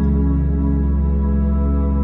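Ambient background music: one sustained chord held steady.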